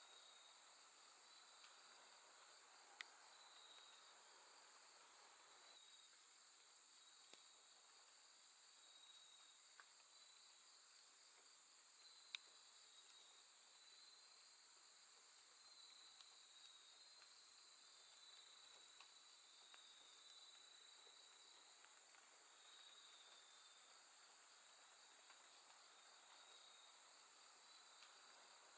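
Faint chorus of crickets and other grass insects calling on a late-summer night: a steady high trill throughout, with a higher-pitched insect calling in a run of short pulses midway. A few faint clicks.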